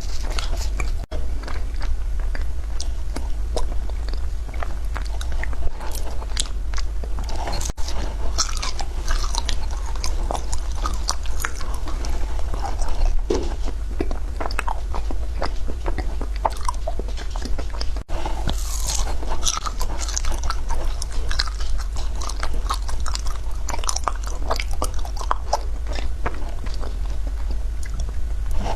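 Frozen matcha ice being bitten and chewed: a continuous run of irregular crunching and cracking, over a steady low hum. The crunching is broken by three very brief dropouts.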